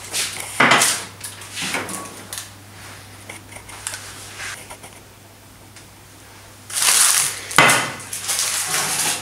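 Kitchen handling noises from a metal loaf pan lined with baking paper: short clatters and rustles in the first two seconds, then two longer, louder scraping clatters about seven seconds in, over a faint steady low hum.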